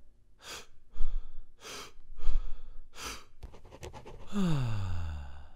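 Logo-intro sound effects: a string of short, breathy whooshes about half a second apart, then a quick run of clicks, then a tone that glides steadily down in pitch for about a second and cuts off suddenly.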